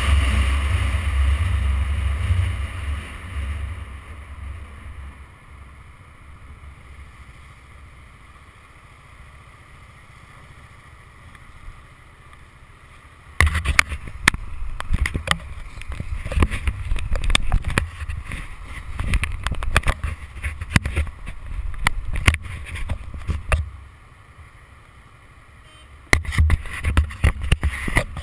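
Wind noise on a motorcycle camera's microphone. A loud rush dies away over the first few seconds as the bike slows, leaving a quieter low rumble. From about halfway, uneven gusts of buffeting come and go, stop briefly, and start again near the end.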